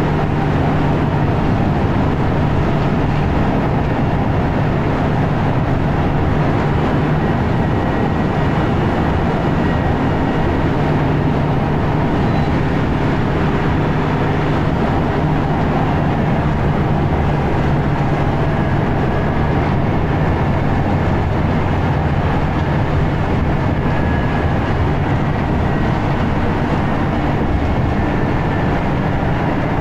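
Scania L94UB bus engine working hard at a steady motorway cruise, the typical 'motorway thrash' of a single-decker at full speed, heard inside the passenger saloon as a loud, even drone mixed with road and tyre noise. No gear changes.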